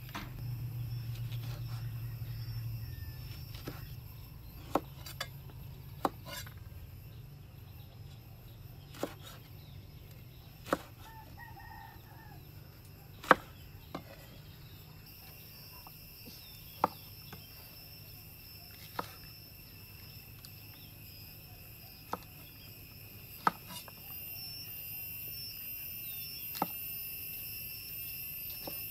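Cleaver knife chopping okra on a wooden cutting board: sharp single knocks a second or two apart, over a steady high insect drone that gets louder near the end.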